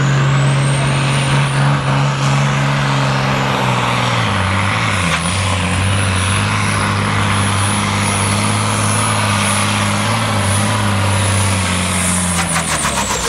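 Turbo-diesel engine of a Volvo N-series pulling truck running flat out under load while dragging a weight-transfer sled, with a high turbo whistle over it. The engine note drops about four seconds in and holds lower, and near the end the whistle falls away as the throttle comes off.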